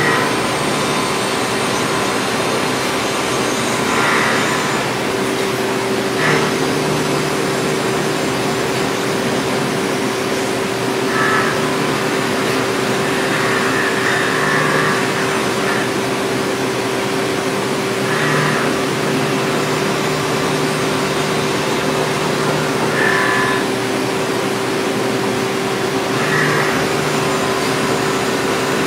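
CNC milling machine cutting bevel-gear teeth with a small end mill: a steady spindle whine on one constant tone over a noise bed, with short higher-pitched swells every few seconds as the cut goes on.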